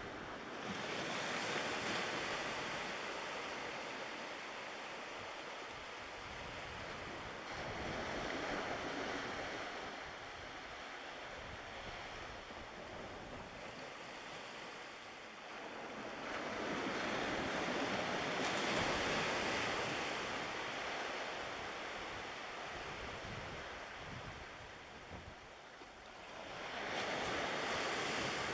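Small waves washing onto the beach, a rushing sound that swells and fades in long surges about every nine seconds.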